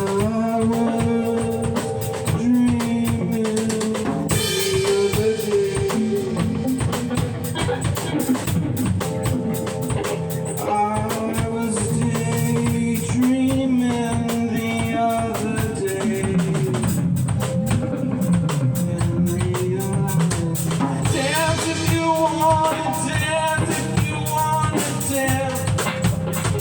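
Music with a full drum kit (kick, snare, rimshots) and a melody that moves in held notes over it.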